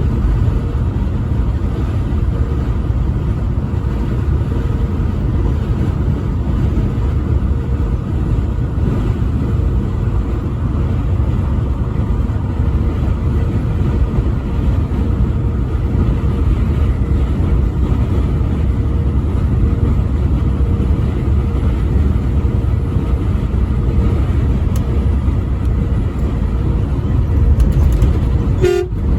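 Steady road and engine rumble of a vehicle driving at highway speed, with a short break just before the end.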